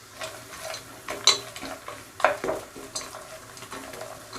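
Cashews, raisins and whole spices frying in butter and ghee with a light sizzle, stirred with a spoon that knocks sharply against the pan a few times.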